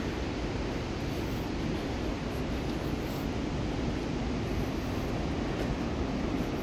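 Steady rushing roar of the Merced River, a fast mountain stream running beside the trail.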